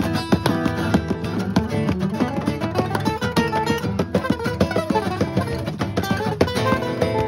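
Two acoustic steel-string guitars jamming together, with a rapid run of picked notes over chords.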